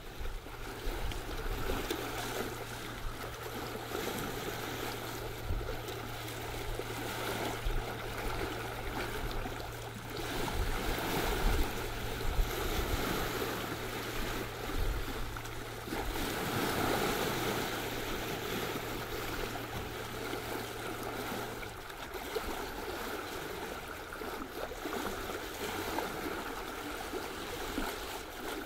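Sea water rushing and splashing along the bow of a sailing ship under way, swelling and easing with the waves. A low steady hum runs underneath and stops about three-quarters of the way through.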